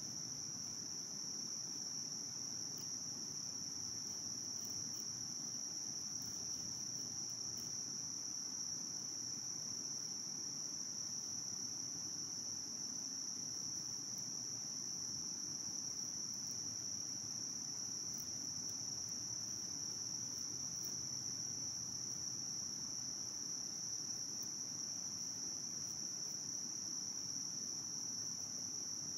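Steady, high-pitched drone of insects, constant with no breaks.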